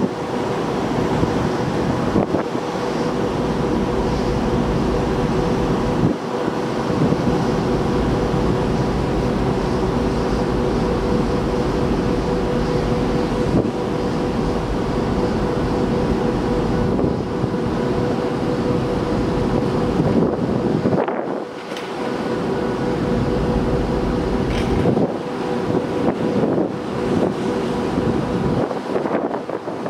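Wind buffeting the microphone in uneven gusts over the steady hum of cruise ship machinery, which holds a constant tone throughout.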